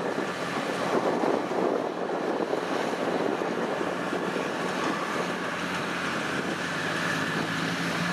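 Kubota DC-105X combine harvester's diesel engine running steadily while it cuts rice, a constant machine hum whose tone grows clearer about halfway through, mixed with wind noise on the microphone.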